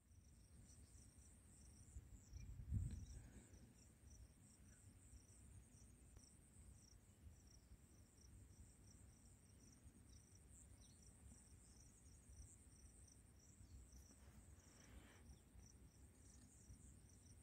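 Faint insects chirping in an even, repeating pulse of about two to three chirps a second over a steady high buzz, with a low rumble underneath. A brief low thump comes about three seconds in.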